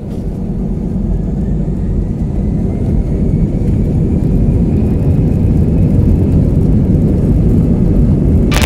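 Jet airliner's takeoff roll heard from inside the cabin: engines at takeoff power and a loud low rumble from the runway, growing louder. A faint whine climbs in pitch in the first few seconds.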